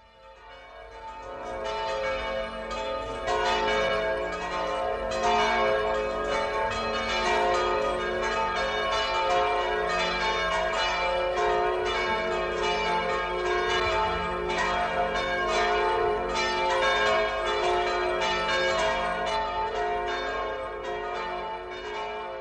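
Several church bells ringing together in a continuous peal, their strikes overlapping, fading in over the first couple of seconds.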